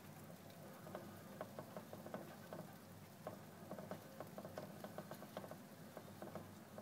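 Plastic hamster wheel turning with two Roborovski dwarf hamsters running in it: fast, irregular light clicking and pattering of small feet and the wheel, several ticks a second, over a low steady hum.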